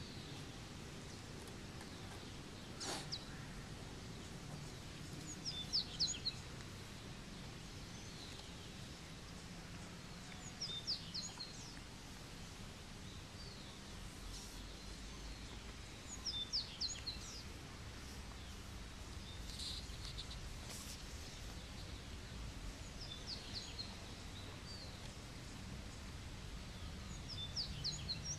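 A songbird singing a short phrase of quick, high, falling notes about every five seconds over faint outdoor background noise, with one sharp click about three seconds in.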